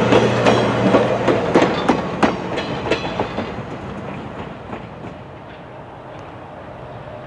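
Passenger train cars rolling past, their wheels clicking over the rails. The clicking fades over the first few seconds as the last car passes and the train draws away, leaving a faint distant rumble.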